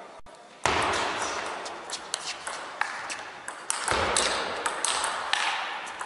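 Table tennis rally: the ball clicks sharply off the bats and bounces on the table, a quick run of hits two or three times a second. It starts just under a second in, over a steady background noise.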